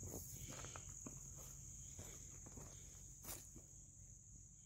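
Faint outdoor ambience: a steady high-pitched insect trill, with a few soft steps on gravel and a single sharp tick a little past the three-second mark.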